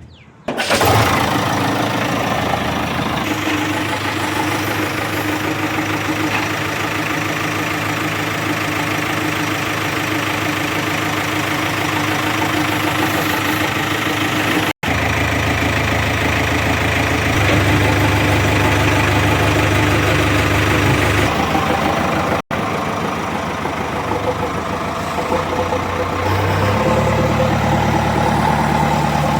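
Heavy diesel engine of a backhoe or farm tractor running steadily, at a slightly different pitch in each of several joined segments, with two brief sudden gaps.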